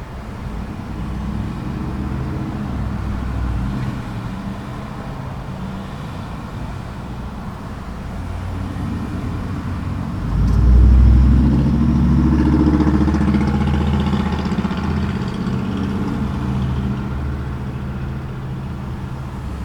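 Road traffic at an intersection: vehicle engines running and passing. One engine swells loudest about ten seconds in and rises in pitch as it accelerates away, then slowly fades.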